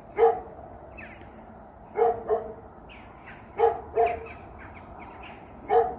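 A dog barking repeatedly, short barks often in pairs about two seconds apart.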